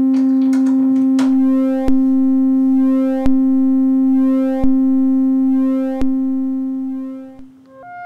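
Serge Triple Waveshaper (Synthetic Sound Labs Model 1050) sounding a steady mid-pitched tone, a sawtooth shaped into a sine wave. Its brightness swells and fades over and over as an LFO drives the waveshaper's second control-voltage input. A sharp click comes about every second and a half, and the tone fades out near the end.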